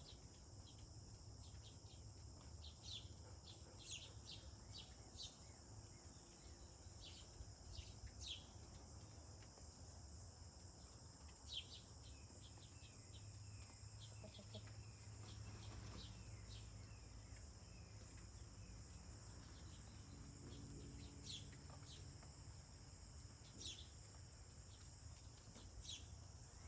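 Quiet outdoor ambience: a steady high-pitched drone of insects, with scattered short bird chirps over it.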